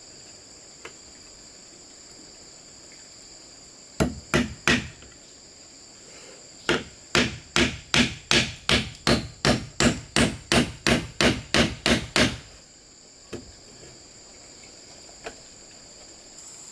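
A hand tool striking bamboo in repeated sharp blows: three quick strikes, a short pause, then a steady run of about sixteen at roughly three a second. Crickets trill steadily with two high tones behind it.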